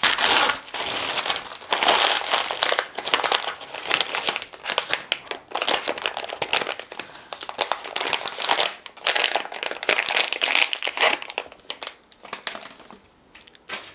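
Packaging crinkling and crackling as it is handled and opened, in irregular bursts that die down near the end.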